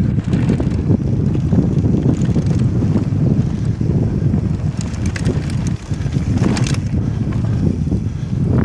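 Heavy wind buffeting on a helmet-mounted camera's microphone during a fast mountain-bike descent, over the rumble of knobby tyres on a dirt track. A few short clatters from the bike rattling over stones come around the middle.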